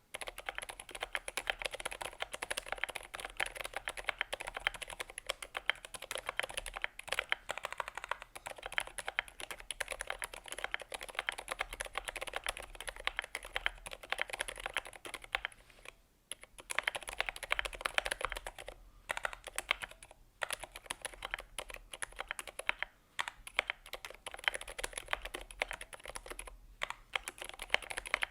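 Typing on a Glorious GMMK Pro mechanical keyboard with unlubed Gateron Silent Black linear switches, an aluminium plate and Akko keycaps: a fast, continuous stream of muted key presses with a few short pauses, one about halfway through.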